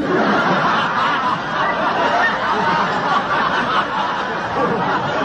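Laughter from several people at once, dense and continuous, with overlapping chuckles and snickers.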